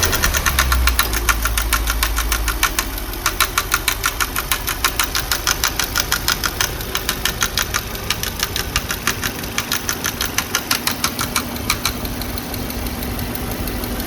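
Audi A8 D5 engine running just after start-up with a fast, regular metallic knock from the cylinder head, plainest a few seconds in and dying away near the end. The mechanic suspects a rocker arm (valve finger follower) has come off.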